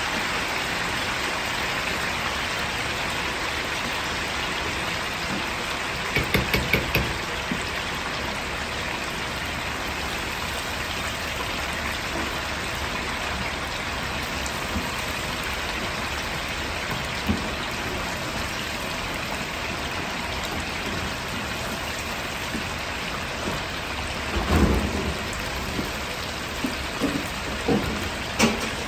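Battered chicken thigh pieces deep-frying in a large wok of hot oil: a steady, dense sizzle. A quick run of about five knocks comes about six seconds in, and a few more near the end.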